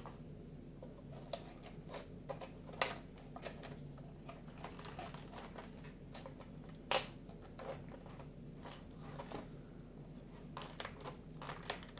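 Cardboard 3D puzzle pieces handled and pressed into place on the model: scattered light taps and clicks, the sharpest about three and seven seconds in, over a low steady hum.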